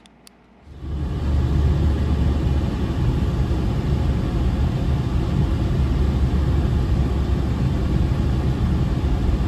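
A loud, steady rumbling noise starts abruptly just under a second in and holds, after two faint clicks.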